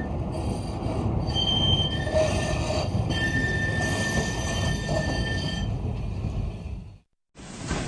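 Train running with its wheels squealing on the rails over a low rumble. The squeal holds several steady high tones and is strongest in the middle. It cuts off about seven seconds in, and a different train rumble starts just before the end.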